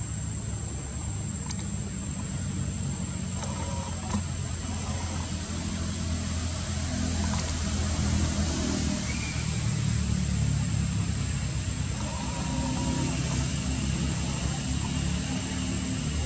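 Steady low engine rumble of a motor vehicle running close by, swelling a little in the middle, over a thin steady high-pitched whine.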